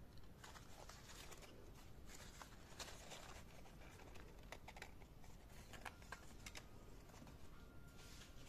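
Faint rustling and crackling of folded paper as an origami jack-o'-lantern is handled and pressed together, in short irregular bits, over a low room hiss.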